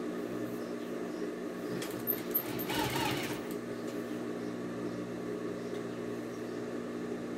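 Sewing machine running steadily, stitching along the edge of a narrow folded fabric strip. There is a brief burst of rustling noise about three seconds in.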